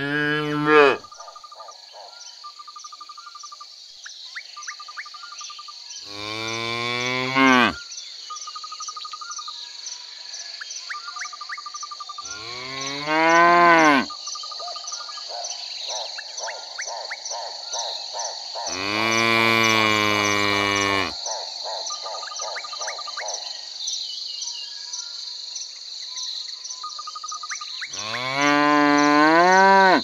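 Cows mooing: five long moos about six seconds apart, the one about twenty seconds in the longest. Steady high insect chirping runs underneath, with a short trill repeating every couple of seconds.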